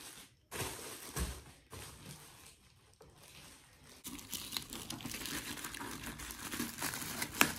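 Black plastic parcel wrapping crinkling as it is handled and cut with scissors; the crackling of the plastic grows denser and louder about halfway through.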